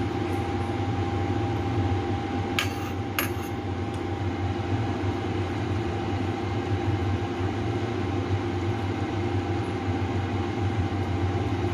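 Steady hum of a running motor, with a faint constant whine above it; two short clicks come about two and a half and three seconds in.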